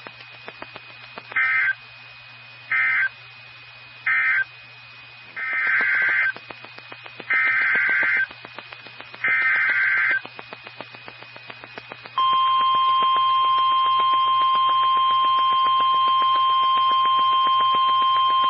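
NOAA Weather Radio alert signalling. First come three short buzzy data bursts, the end-of-message code. Then come three longer SAME header data bursts, about a second each, for the next warning. About two-thirds through, the steady 1050 Hz warning alarm tone starts and holds, all over faint radio crackle and hum.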